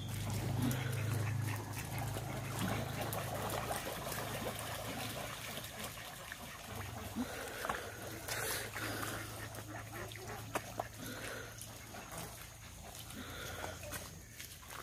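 A flock of domestic ducks quacking and dabbling in shallow muddy water, over a low steady hum.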